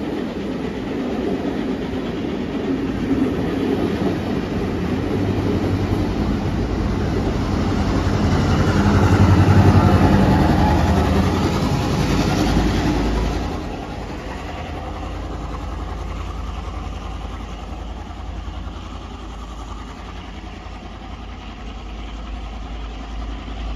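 Heritage passenger carriages rolling past, then the trailing 42-class diesel-electric locomotive 4201 passing with its engine running. The sound is loudest about ten seconds in, drops off sharply a few seconds later and fades to a low rumble as the train pulls away.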